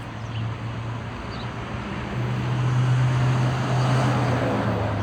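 Street traffic: a motor vehicle going by, with a steady low engine hum and road noise that swell about two seconds in and ease off toward the end.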